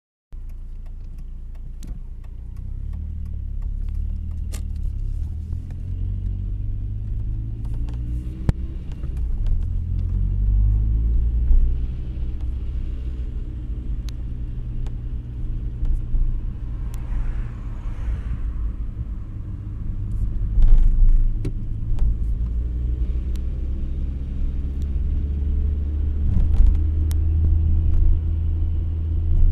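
Audi A3 1.8T turbo four-cylinder heard from inside the cabin while driving: a low engine and road rumble whose pitch rises and falls several times, with scattered sharp clicks and rattles. The rattle is the strange one the owner hears at around 1900 rpm on this chipped car.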